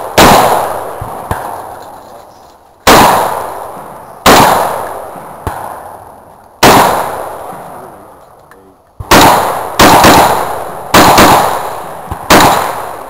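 A firearm fired about eight times in a slow, uneven string, the shots from under a second to over two seconds apart. Each shot cracks sharply and rings out in a long echo.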